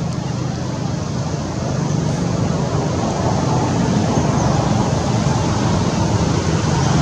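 Steady low rumble of a distant engine, growing gradually louder.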